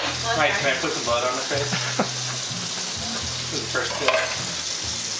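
Food frying in a hot pan: a steady sizzle, with sharp pops about two and four seconds in.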